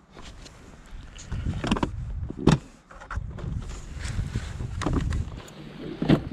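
BMW motorcycle top case being unlatched and its lid swung open, then its contents handled. There are several sharp clicks and knocks, the loudest about two and a half seconds in, over a low rumble.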